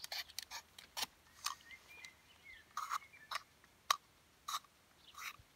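Utility knife blade scratching up the exposed cambium on a ringed apple branch while preparing it for air layering: a run of short, quiet scrapes and ticks at an uneven pace.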